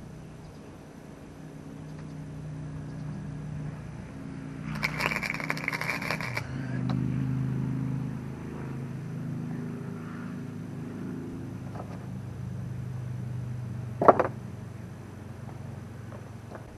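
A short burst of welding-arc crackle, a tack weld on a piece of steel exhaust pipe, starting about five seconds in and lasting about a second and a half, over a low steady hum. A single sharp clack comes about fourteen seconds in.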